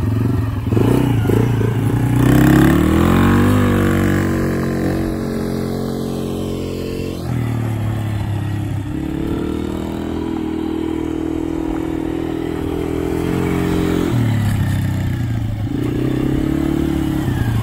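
Polaris Sportsman 90 youth ATV engine revving up as it pulls away, then running at a steady speed with a short break about seven seconds in, and easing off a couple of seconds before the end.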